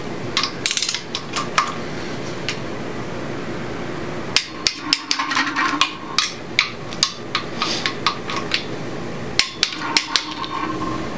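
Ratchet wrench with an extension clicking and clinking against metal as the front cover bolts on an LS 5.3L V8 block are run down and tightened. The sharp clicks come in irregular clusters, busiest in the middle and again near the end.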